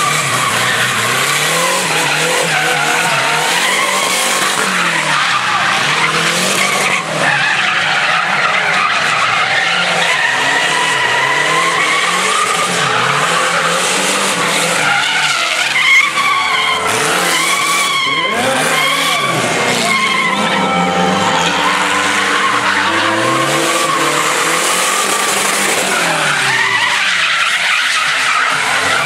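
Chevrolet Chevette doing smoky donuts: the tyres squeal without a break while the engine revs rise and fall again and again.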